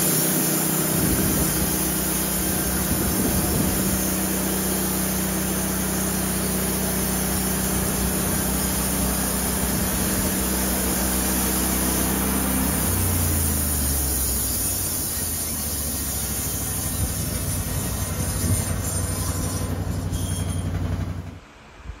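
Homemade band sawmill running with a steady drone and a loud hiss. About two-thirds of the way through, the drone steps down in pitch, and the sound dies away just before the end.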